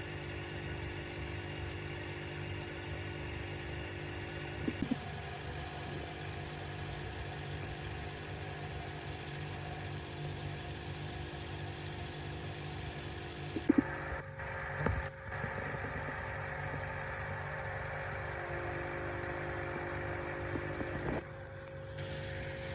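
Steady mechanical hum of an aquarium filter pump with a wash of water noise, its pitch and mix shifting abruptly three times, with a few brief knocks at those changes.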